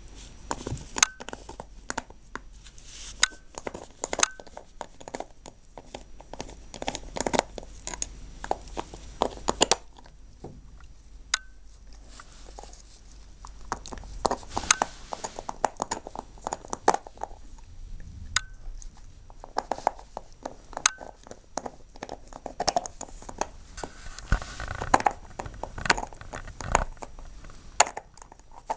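Border collie gnawing a bone: irregular crunches and clicks of teeth on the bone, pausing briefly twice.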